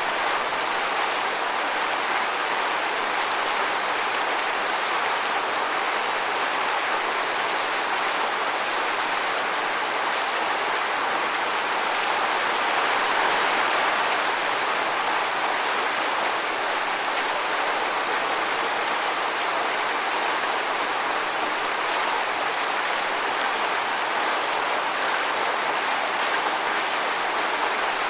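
Waterfall: water pouring and splashing in a steady rush, mostly in the mid and high range with little low rumble.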